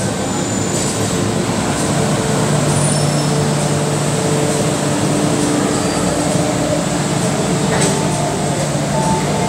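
MTR M-Train electric multiple unit running into the platform and braking to a stop. A steady rumble with humming tones.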